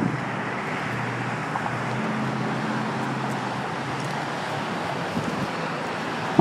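Steady hiss of heavy highway traffic on a bridge: the tyres and engines of many cars blended into one continuous noise, with a lower engine hum standing out about two to three and a half seconds in.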